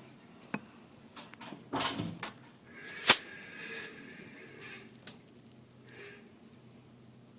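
A few sharp clicks and small knocks of handling, the loudest about three seconds in, followed by a soft hiss lasting a second or two.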